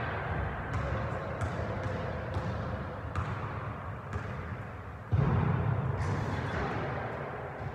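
Basketballs bouncing on a hardwood gym floor, echoing through a large hall: scattered knocks about once a second, and a louder boom about five seconds in that rings on as it fades.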